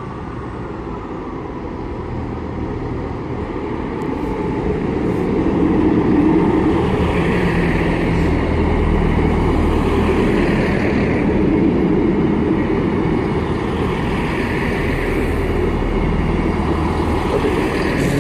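Two-car Class 158 diesel multiple unit pulling away, its underfloor diesel engines running under power and growing louder over the first several seconds, then holding steady, with a higher squeal coming and going a few times.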